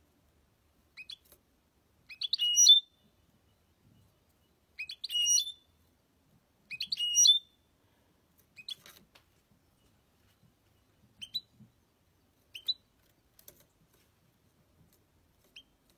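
A caged European goldfinch calling and singing in short bouts. It gives brief rising chirps, and in the first half three louder twittering phrases come a couple of seconds apart; after those, single notes come sparsely.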